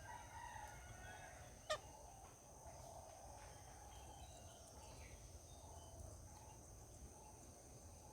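Outdoor birds calling faintly, with one loud, sharp call falling steeply in pitch about two seconds in, over a steady high-pitched insect drone.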